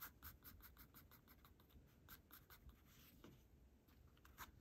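Faint pencil strokes on paper, quick back-and-forth shading at about five strokes a second. The strokes thin out about three seconds in and a few more come near the end.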